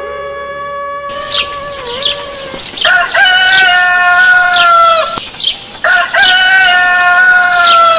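A rooster crowing twice in long, slightly falling crows, with small birds chirping around it.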